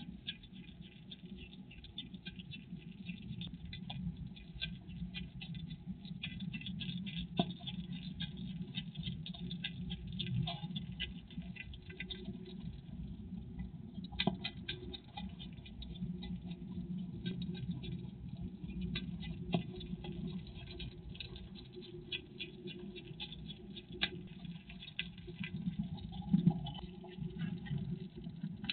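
Hedgehog eating shelled peanuts: a dense, continuous run of small crunching clicks as it chews, with a few louder clicks scattered through.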